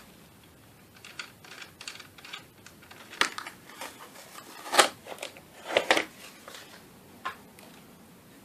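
Irregular clicks and light knocks of small hard tools and parts being handled on a workbench, a few sharper knocks in the middle.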